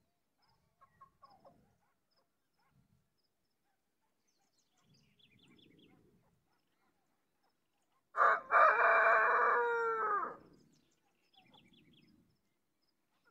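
A rooster crows once, about eight seconds in: a loud call of about two and a half seconds that falls in pitch at its end. Faint short bird chirps come and go around it.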